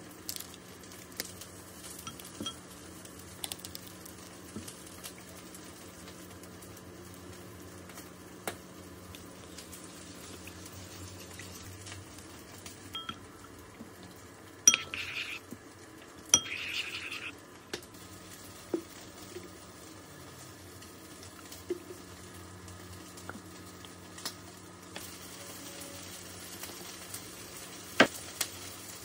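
A spoon clinking and scraping against a ceramic mixing bowl as sauce is stirred, a few sharp clinks over a steady low hum. About halfway through come two short, louder rushes of noise a second or so apart.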